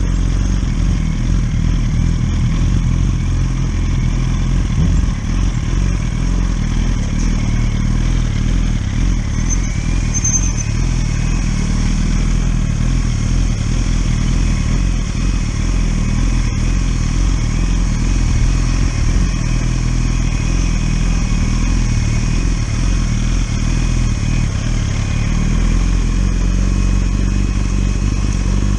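1000 cc inline-four sport motorcycle engine running at a steady, fairly low pitch, with little change in revs.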